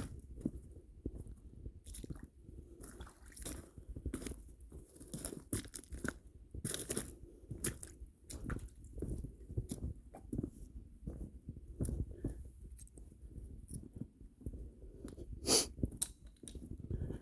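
Footsteps crunching over the dry gravel, stones and leaf litter of a dry creek bed, in irregular crunches with one louder crunch near the end.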